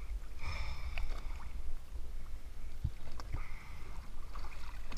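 Sea water sloshing and lapping around divers floating against an inflatable boat's hull, over a low steady rumble, with a couple of short splashes about three seconds in.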